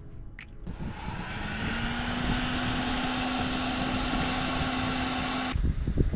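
Handheld electric heat gun switched on, its fan motor spinning up to a steady hum over rushing air, then switched off abruptly after about five seconds. Low rumbling bumps follow near the end.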